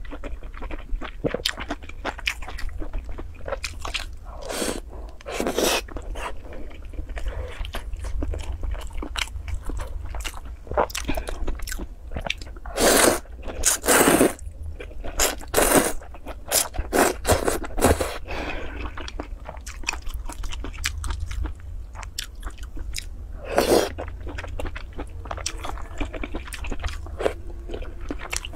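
Close-up eating sounds: a person chewing and slurping noodles in soup, with short wet smacks and clicks throughout and several louder slurps around the middle and once more near the end. A steady low hum sits underneath.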